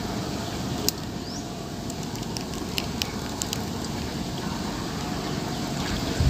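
Outdoor background noise: a steady rumble and hiss with a few short, sharp clicks about a second in and again around three seconds in.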